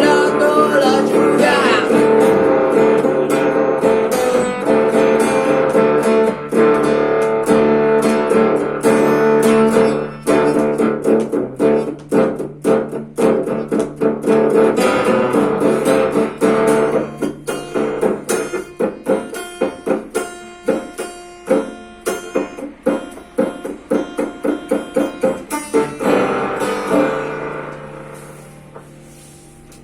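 Music played on guitar: dense plucked playing over a held low note, thinning out about two-thirds of the way in to single plucked notes, and fading away near the end.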